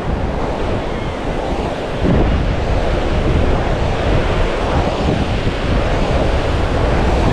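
Sea surf washing on a sandy beach, with wind buffeting the microphone; the low wind rumble gets louder about two seconds in.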